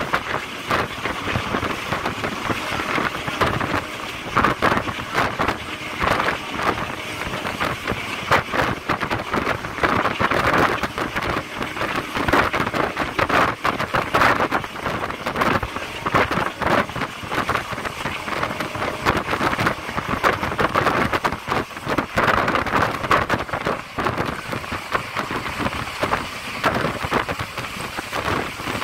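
A moving passenger train heard from on board: a steady rattling clatter of wheels and carriage, with some wind noise on the microphone.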